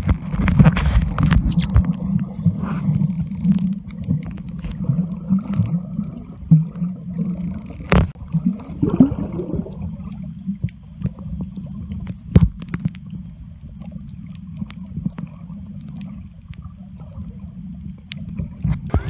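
Muffled underwater rumble and gurgling picked up by a submerged camera, louder in the first few seconds. A few sharp clicks or knocks come through, two of them distinct, about 8 and 12 seconds in.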